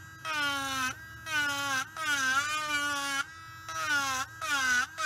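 Dremel Stylo rotary tool with a 5 mm ball cutter carving the rim of a wooden bowl in about five short, light strokes. Its high whine sags in pitch as each cut bites, and it drops quieter between cuts.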